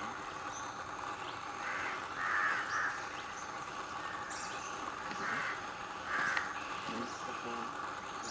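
Crow cawing: three harsh caws in quick succession about two seconds in, then two more around five and six seconds in, over a steady background hiss.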